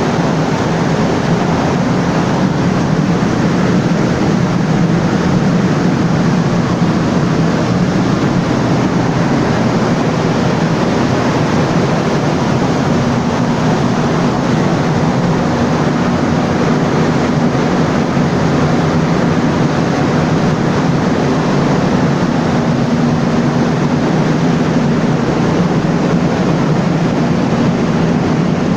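Caterpillar 3616 V16 diesel generator engine running steadily at speed, loud and continuous with a steady low hum. A slightly higher steady tone joins the hum about halfway through.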